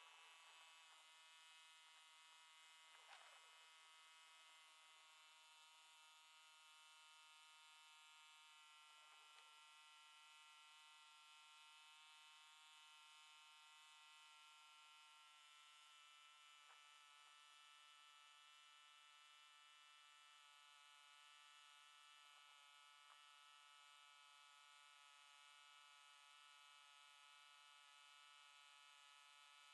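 Near silence: a faint, steady electrical hum, with a few very faint soft knocks.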